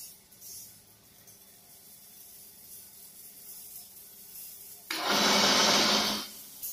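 Bent steel wire pieces handled in a stack on a concrete floor: faint light ticks at first, then a loud scraping rattle of wire against wire and concrete lasting just over a second near the end.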